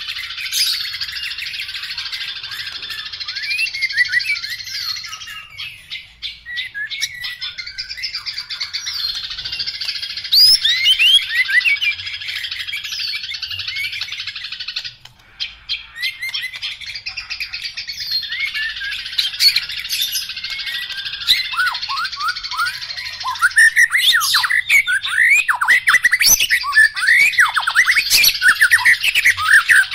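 Caged white-rumped shama (murai batu) singing a long, varied song of fast whistles and chattering trills. Its song grows louder with quick swooping notes in the last third.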